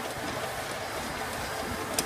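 Belt-driven circular sawbench running steadily, a continuous mechanical noise, with a sharp click at the very end.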